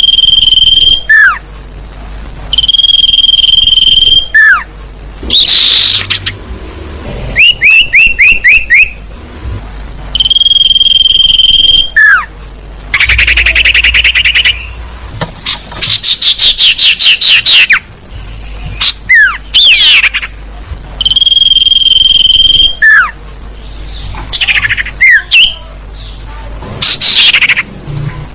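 Bird-lure recording of small-owl ('sirtu') calls: long, steady, high whistled notes repeated every few seconds, alternating with rapid runs of short downward-sweeping chirps and trills.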